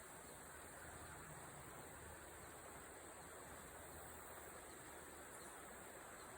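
Faint, steady rush of the Wolf River's flowing water at a bend, an even hiss with no single sounds standing out.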